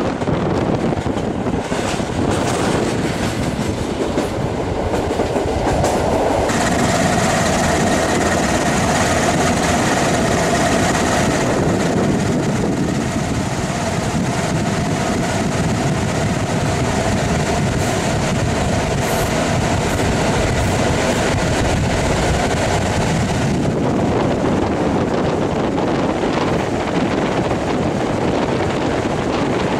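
Passenger train running, heard from a carriage window: wheels clattering over the rail joints. A steady whine rides over the rolling noise from about six seconds in and fades out near twenty-four seconds.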